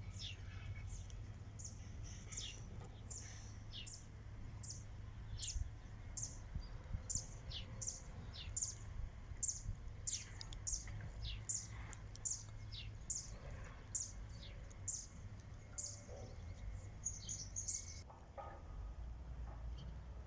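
A bird chirping over and over: short high notes that each fall quickly in pitch, about one and a half a second, over a steady low hum. The chirps stop near the end.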